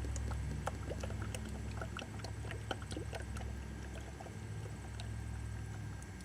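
Fresh motor oil glugging as it is poured from a bottle into the engine's oil filler: a steady low gurgling rumble with small bubbly blips and clicks, stopping just before the end.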